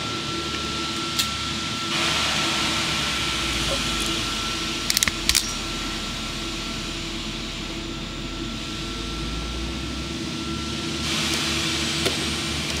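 A hand crimping tool clicks in a quick cluster about five seconds in as bootlace ferrules are crimped onto red wires, with a single click earlier. A steady background hum and hiss runs underneath.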